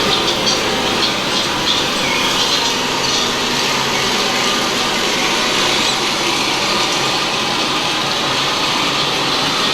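Steady loud rumble of a ride car rolling on its track, with short high-pitched squeals in the first few seconds.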